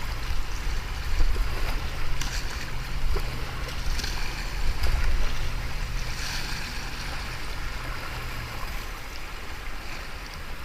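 Whitewater rushing, with a few brief splashes from a kayak paddle about two, four and six seconds in and a low rumble under the water noise.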